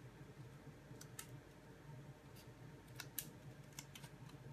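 Scissors snipping off the ends of thin grosgrain ribbon strips: several faint, sharp snips, some in quick pairs.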